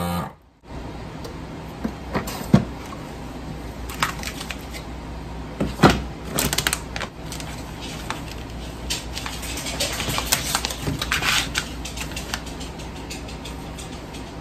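A vacuum sealer's pump hum stops abruptly at the very start. Then a plastic vacuum-sealer bag is handled, with crinkling and sharp clicks and taps, and a marker scratches on the plastic bag.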